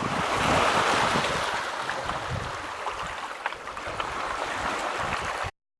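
Steady rush of lake water washing against the shore, with wind, easing slightly and with a few light clicks; it cuts off suddenly near the end.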